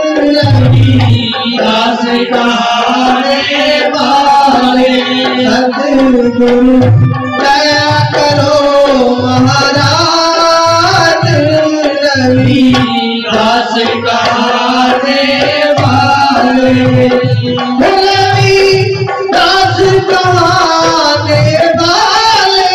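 A Haryanvi devotional shabad performed live and amplified: a man sings a melodic line into a microphone over a sustained harmonium and a hand drum (dholak or tabla) that keeps a steady beat.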